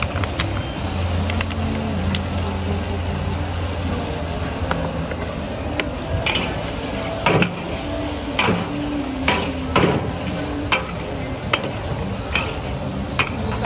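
Steel spatula and ladle scraping and clanking against a large stainless-steel wok while egg, onion and carrot sizzle in it. The clanks come irregularly and are most frequent in the middle of the stretch, over a steady low hum in the first few seconds.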